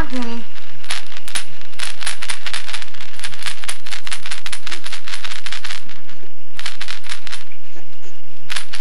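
A rapid, irregular series of sharp clicks and rattles, dense for several seconds, then pausing and returning in short clusters near the end.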